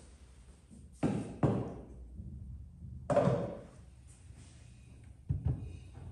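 Knocks and thuds of a stainless steel pot and potatoes being handled on a wooden table: two knocks about a second in, one about three seconds in with a short metallic ring, and two more near the end.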